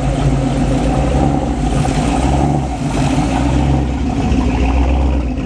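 A car engine running with a low, steady rumble.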